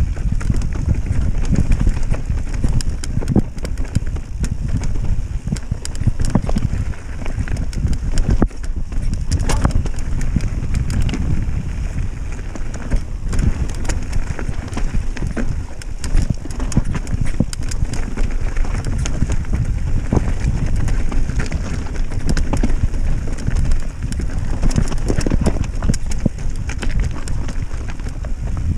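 Mountain bike clattering down a rocky singletrack: tyres crunching over loose stone, with a steady stream of irregular sharp knocks and rattles from the bike as it hits rocks.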